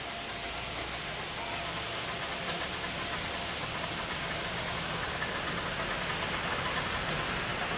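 Miniature ride-on train approaching along the track, its running noise over a steady hiss growing gradually louder.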